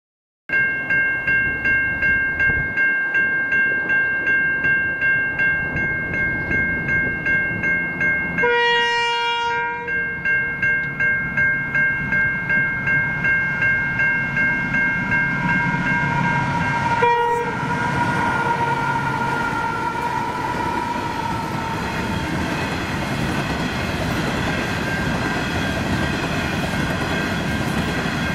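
Level crossing warning bells ringing in a steady beat of about two strokes a second. A diesel locomotive's horn sounds one long blast about nine seconds in and a short blast about seventeen seconds in. A long coal train then rumbles past, its wagons rolling over the crossing.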